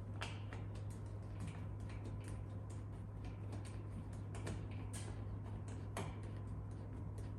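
Irregular small clicks and taps of a screwdriver and 7/16 wrench working a bolt and nut, tightening a clamp onto a roll-cage tube. A steady low hum runs underneath.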